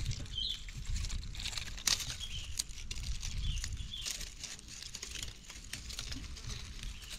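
Dry leaves and twigs rustling and crackling, with many small snaps and clicks in quick succession. A few short, high chirps come through now and then.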